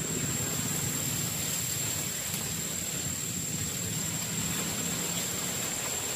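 Steady outdoor background noise: a low hum and a constant high-pitched whine, unchanging and with no distinct events.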